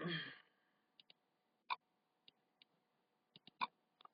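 Computer mouse clicking: scattered single clicks at an irregular pace while software is being opened, after a brief burst of noise at the very start.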